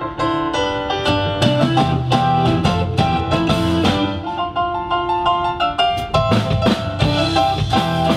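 Live band playing a song on drum kit, keyboard and guitars, with a steady beat.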